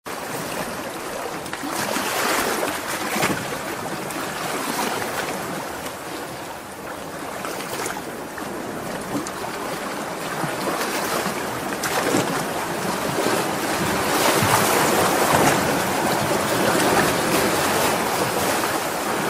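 Surf washing in over a sand beach, foam hissing around the feet, rising and easing in a few slow swells.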